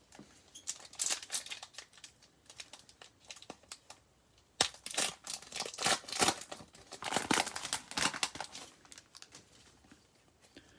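Plastic trading-card pack wrapper being torn open and crinkled, with the cards handled. It is lighter for the first few seconds and louder and denser from about halfway in.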